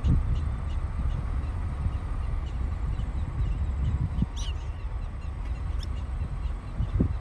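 Wind rumbling on the microphone, with faint high chirps of prairie dogs repeating about twice a second and two sharper calls about midway.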